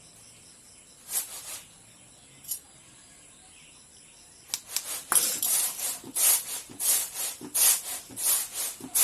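Repeated rubbing and scraping of a utensil against a dish, about two to three strokes a second, starting about halfway in, as crushed tulsi leaf pulp is strained to get its juice. Before that, a single soft swish and a small click.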